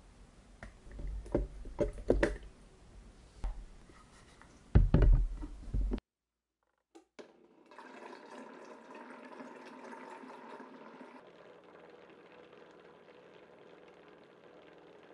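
Spoon knocking and thudding against a plastic blender jar as Nutella is dropped into heavy cream, loudest about five seconds in. After a short silence and a click, the blender motor runs steadily, mixing the Nutella and cream into a smooth chocolate liquid. Its tone changes slightly about eleven seconds in.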